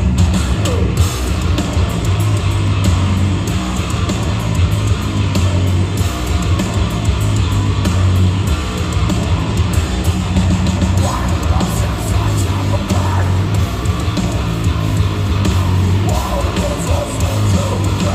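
Heavy metal band playing live: distorted electric guitars, bass and drums through a concert PA, heard loud from the audience.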